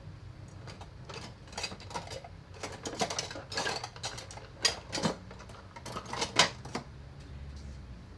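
Kitchenware clinking and clattering as it is handled: a quick run of clicks and knocks, the sharpest about five and six and a half seconds in.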